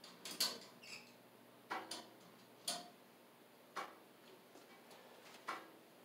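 Scattered sharp clicks and taps, about six at irregular intervals, from hands and tools working on the wiring of a boiler circulating pump.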